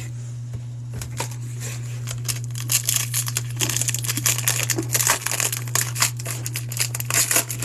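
Plastic foil wrapper of a baseball card pack being torn open and crinkled, a dense crackle that starts about a second in and grows busier.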